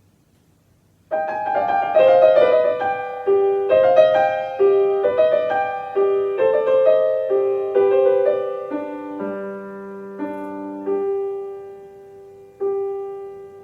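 Solo piano playing a slow, quiet piece. It starts about a second in with a quick flowing run of notes, then thins out into slower held notes that fade, with one more soft note near the end.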